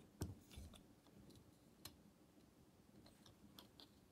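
Faint, scattered clicks of a plastic Transformers Airazor action figure's joints and parts being handled and moved into place, the sharpest about a quarter second in.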